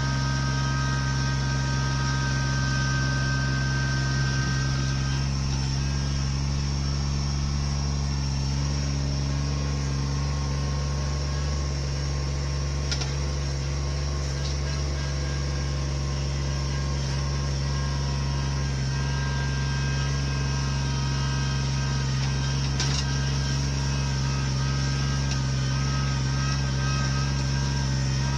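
A large engine running steadily at a constant speed, with a faint click or two.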